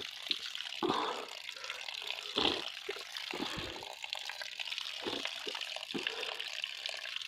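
Spring water running steadily, with short irregular splashes as someone drinks from the flow.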